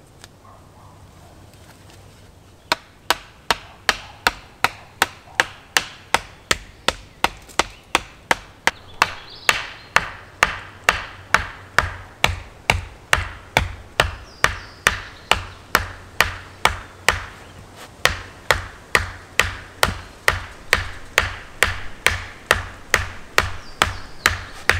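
A wooden stake being pounded into the ground, struck sharply about two and a half times a second in a steady rhythm that starts a few seconds in.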